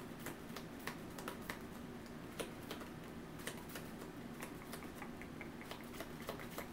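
Trading cards being handled and laid down on a table: light, irregular clicks and taps, over a faint steady hum.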